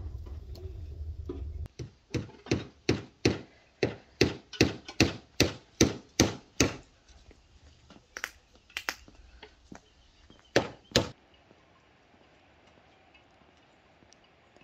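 A fast run of sharp chopping knocks, about three a second for several seconds, followed by a few scattered knocks. A low rumble comes before them.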